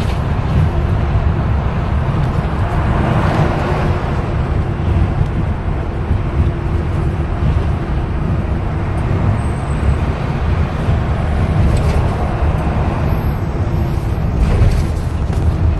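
Steady rumble of a vehicle on the road, engine and tyre noise while driving in traffic.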